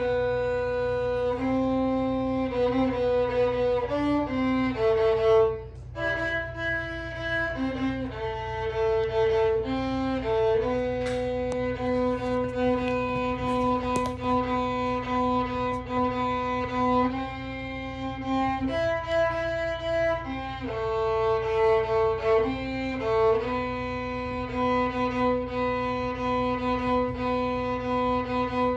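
A violin played as a slow melody of held notes, each bowed for about a second before moving to the next.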